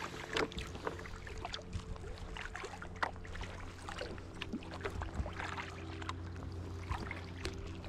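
Sea kayak being paddled on calm water: irregular splashes and drips from the paddle blades and water against the hull. A steady low hum runs underneath.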